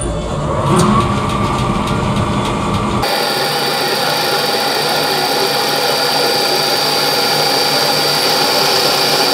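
Metal lathe running with the workpiece spinning in the chuck. About three seconds in, the sound changes abruptly to a steadier running noise with a high, steady whine.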